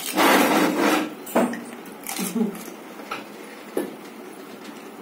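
Plates and plastic bowls clattering on a table as golgappa are dipped and eaten: a loud rustling clatter in the first second, then a few scattered knocks.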